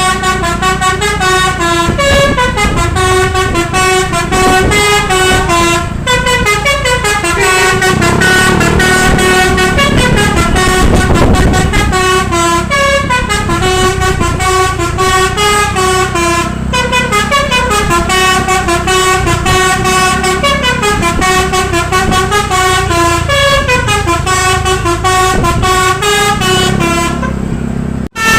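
Bus's Basuri telolet musical air horn playing a tune of stepped notes, phrase after phrase, over the rumble of the bus engine. It breaks off briefly near the end.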